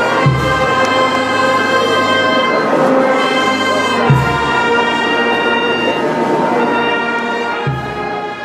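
Brass band playing slow music in long held chords, with deep bass notes coming in at the start, about halfway through and near the end.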